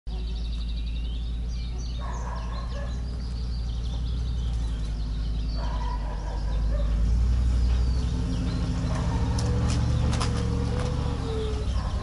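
Engine of a vehicle towing a trailer, running with a low, steady rumble that grows louder about seven seconds in as it draws near. Small birds chirp in the first couple of seconds.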